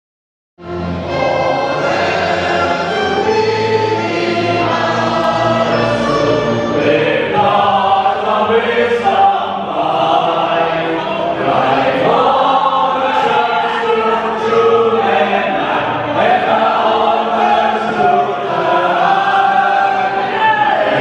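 A choir singing, several voices together, starting about half a second in.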